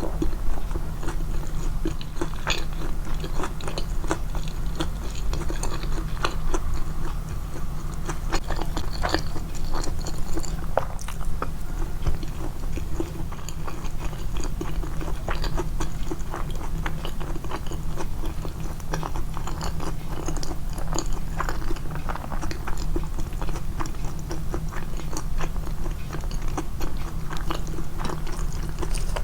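Close-miked chewing, amplified in the edit: a person chewing food with a dense run of sharp wet clicks and small crunches, over a steady low hum.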